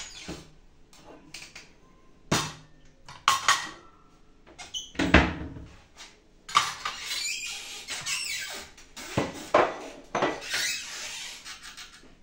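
Dishes and a drinking glass handled on a kitchen counter: a few separate knocks and clinks, then several seconds of rustling and scraping broken by sharper knocks.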